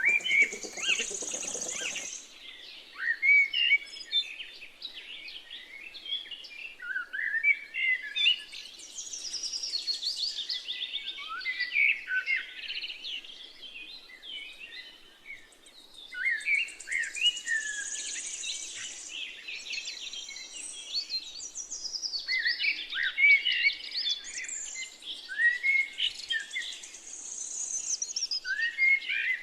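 A flock of small birds chirping and twittering together: many short, quick notes overlapping in a busy, continuous chorus. A short burst of lower noise comes in at the very start.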